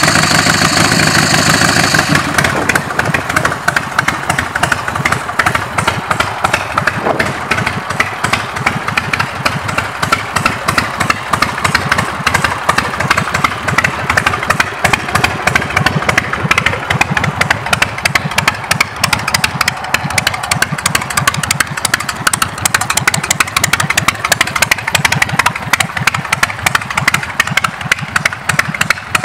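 Motorcycle V-twin engine idling with a steady, rapid exhaust pulse. It is louder for about the first two seconds, then settles to an even idle.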